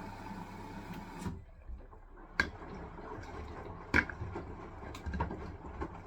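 Hisense washing machine on a wool cycle: the drum motor runs with a steady hum, then cuts off suddenly about a second in. Several sharp clicks and knocks follow, the loudest about four seconds in, with faint water sounds.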